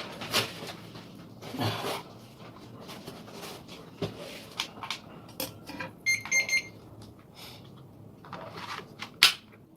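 Scattered clicks and knocks of small plastic parts being handled, with a short run of rapid, high electronic beeps about six seconds in.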